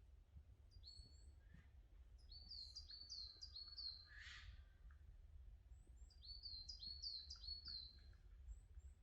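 A forest songbird singing faintly: two phrases of about six quick, high, repeated notes, each note hooking downward, over a steady low rumble. A brief harsher sound falls between the phrases.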